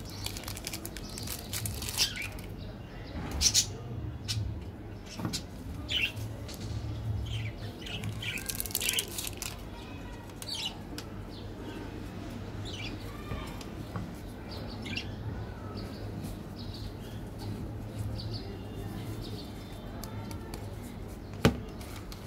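Foil wrapper of a chocolate wafer bar crinkling and tearing as it is opened, in quick crackles through the first half. After that come faint high chirps over a low hum, and a single sharp tap near the end.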